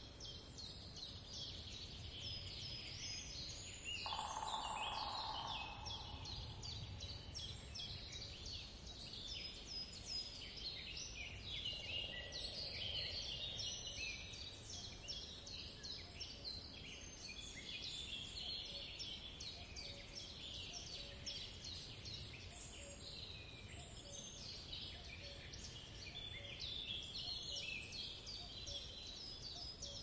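Many small songbirds chirping at once in a dense, continuous chorus of short high notes, over a faint low rumble. A brief louder, lower sound comes in about four seconds in.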